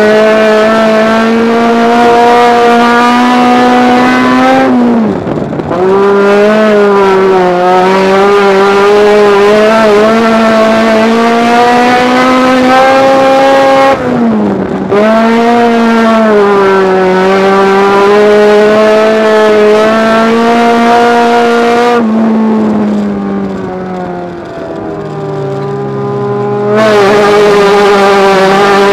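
Honda Civic Si race car's four-cylinder engine at high revs, heard from inside the car, pulling steadily on the straights. The revs dip sharply and recover twice, and about three quarters through they drop for several seconds before picking up again near the end.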